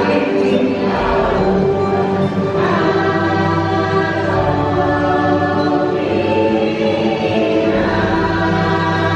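Choral singing over a steady low drone in the ride's musical soundtrack, the sung chords shifting every few seconds.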